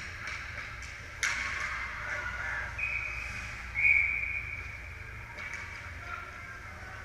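Referee's whistle in an ice rink: two steady blasts back to back, the second louder, stopping play during a scramble at the net. About a second earlier a sharp crack of a stick or puck rings out over the rink's steady hum.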